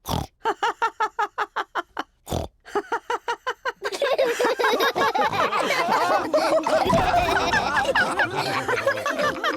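Cartoon pig characters laughing and snorting. One voice gives a quick run of short ho-ho pulses at first; from about four seconds in, many voices laugh and snort together.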